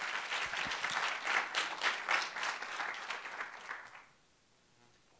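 Audience applauding, with many hands clapping at once, dying away about four seconds in.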